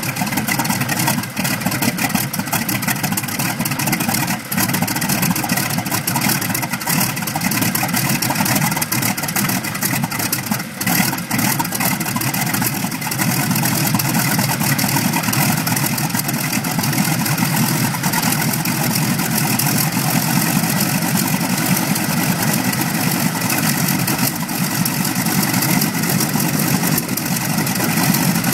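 North American P-64's Wright R-1820 Cyclone nine-cylinder radial engine running loudly and steadily with its propeller turning, a few brief dips in level in the first half. The engine has just been coaxed back to life for the first time in about 20 years.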